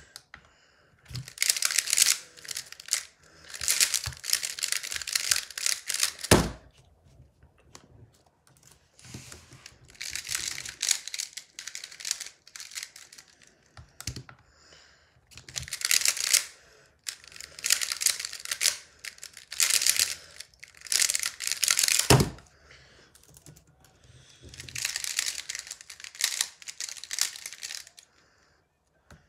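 Square-1 puzzle being turned fast: rapid plastic clacking and scraping of its layers in bursts of several seconds. A sharp slap on the timer pads comes at the end of a burst about six seconds in and again about 22 seconds in.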